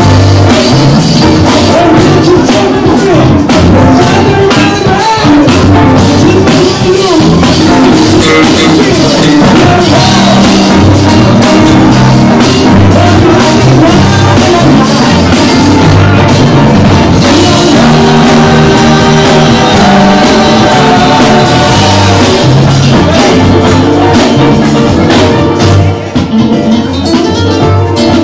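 Live band playing loud music on electric guitars, keyboard and drum kit; the sound dips and thins out about two seconds before the end.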